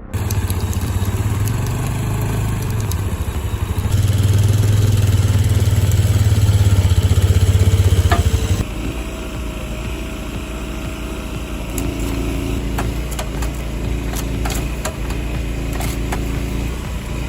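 Engines of working machinery running. A loud engine with a fast pulsing beat runs for the first half and gets louder partway through. It cuts off suddenly to a different, steadier engine sound with scattered clicks and knocks.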